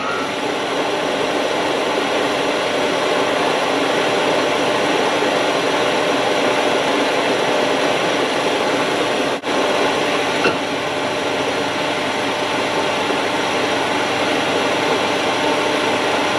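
A machine running steadily: an even, loud hiss with a hum of several steady tones. It cuts out for a moment about nine seconds in.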